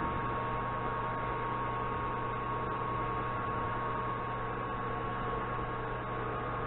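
Steady electrical hum with a constant hiss and a thin high tone, unchanging throughout, with no distinct knocks or tool strikes.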